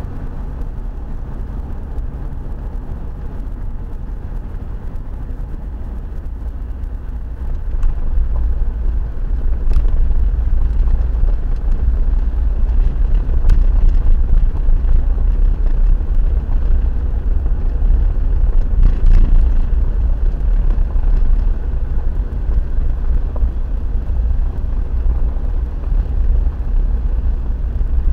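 Car driving along a narrow lane, heard from inside the cabin: a steady low rumble of engine and tyres that grows louder about seven and a half seconds in, with a few light clicks.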